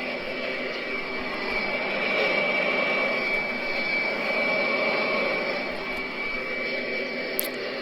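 Heavy industrial machinery running steadily, a continuous mechanical noise with a constant high-pitched whine over it.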